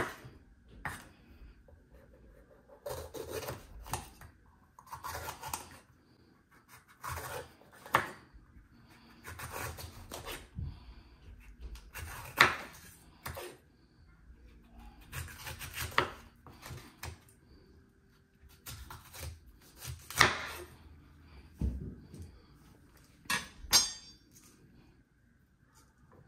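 Knife cutting bell peppers on a cutting board: irregular knocks and scrapes of the blade on the board, with a quick run of clicks near the end.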